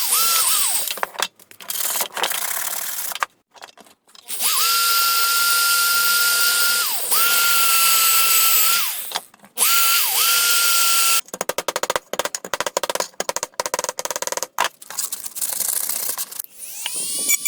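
Small electric power tool cutting scrap sheet metal: the motor runs in several bursts with a steady high whine that sags briefly when it bites, stopping and restarting between bursts. About two-thirds of the way through it changes to a fast, rattling run of strokes.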